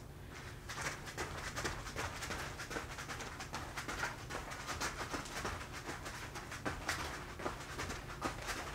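Beaded moccasin boots tapping and scuffing on a foam play mat as heel-and-toe dance steps travel backwards: a quick, uneven patter of soft taps, several a second, over a low steady hum.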